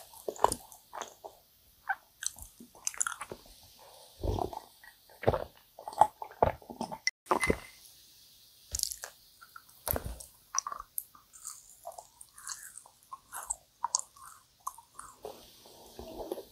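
Close-miked chewing of sticky, syrup-soaked yakgwa (Korean fried honey cookie), with irregular sticky mouth clicks and smacks.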